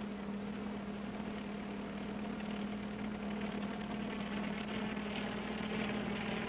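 Small bubble-canopy helicopter droning steadily: an even low hum with a hiss over it, with no breaks or changes.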